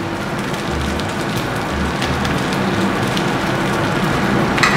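Whole chicken coated in spice paste sizzling steadily on a pan over low heat, with one light click near the end.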